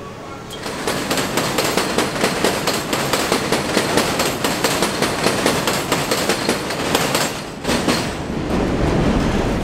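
A New York City subway train of R62 cars passing close on an elevated structure, its wheels clattering rapidly and rhythmically over the rail joints, about three or four clacks a second. Near the end the clatter breaks briefly and gives way to a lower rumble.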